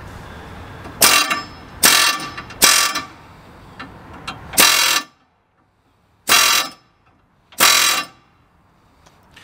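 Pneumatic air chisel (air hammer) fired in six short bursts of rapid metal-on-metal hammering, each under half a second, with pauses between. It is hammering out the bottom part of a car's ball joint from the steering knuckle.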